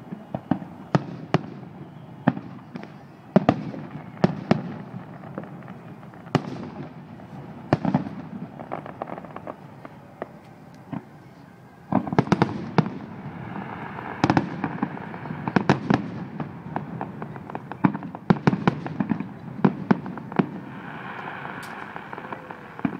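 Fireworks display: aerial shells bursting in a string of sharp bangs with crackling.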